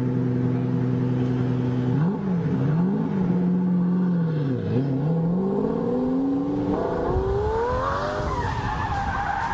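Lamborghini Diablo V12 idling, then blipped up and down several times from about two seconds in, then revving up hard as the car launches. Near the end its tyres squeal as the car slides sideways.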